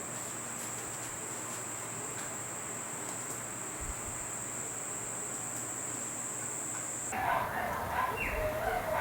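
A steady high-pitched drone, like insects, stops abruptly about seven seconds in. A dog then starts making short, uneven yips and whines.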